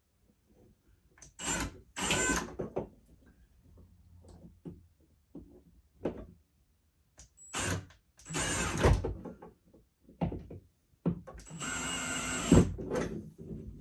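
Cordless drill/driver run in several short bursts, driving screws into the wall to fasten a clothes-rod bracket; the longest burst, about two seconds, comes near the end.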